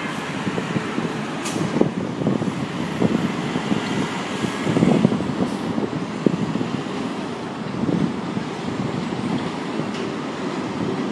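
Steady rumbling vehicle noise while an R62A subway train approaches along the elevated steel track, mixed with city traffic, with scattered small knocks.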